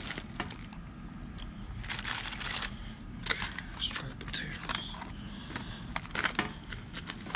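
Handling noises from food and utensils: scattered sharp clicks and a few brief crinkly rustles as grilled potatoes are opened and tasted.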